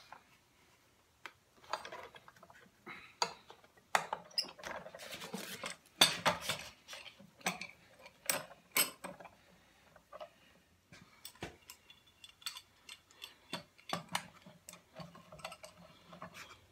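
Wooden boards and metal tools being handled on a workbench: a string of irregular knocks, clicks and clatters with short pauses between them.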